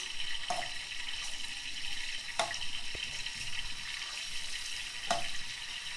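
Minced garlic and chopped hot red pepper frying in hot vegetable oil in a frying pan, a steady gentle sizzle. A metal spoon knocks against the pan three times as it stirs.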